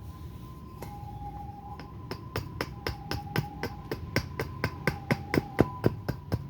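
An axe chopping a surian-wood spoon blank in quick, light strokes, about three to four sharp strikes a second, getting louder toward the end.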